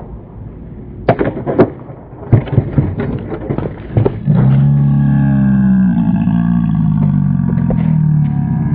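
A skateboard and its rider hitting concrete steps: two sharp knocks, then a quick run of clattering impacts. About halfway through, a steady low drone starts and carries on with a few clicks over it.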